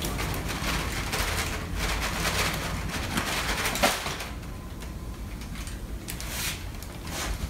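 Wax paper rustling and crackling as a glued wire-and-wood speaker stator is lifted off the jig, with a sharp knock just before four seconds in. The rustling then dies down to a few light clicks.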